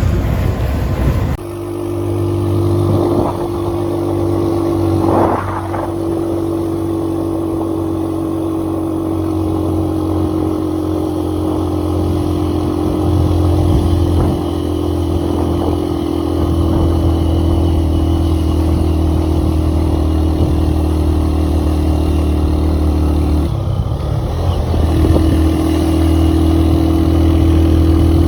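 Vehicle engine running steadily while driving, a continuous hum with road noise. The engine note briefly drops away about 23 seconds in, then picks up again.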